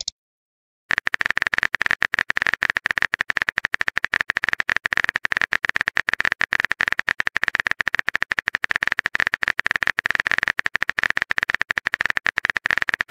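Texting-app keyboard typing sound effect: a fast, even stream of small key clicks as a message is typed out, starting about a second in.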